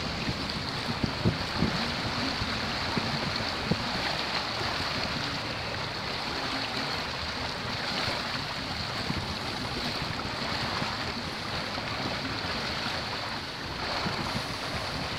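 Steady rush of water along the hull of a small sailboat under sail, with wind buffeting the microphone in irregular low gusts.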